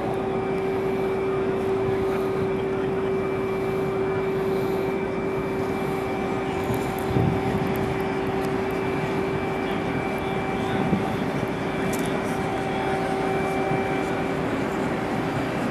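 A steady machinery hum holding one even pitch without a break, over a background of outdoor noise, with a brief knock about seven seconds in.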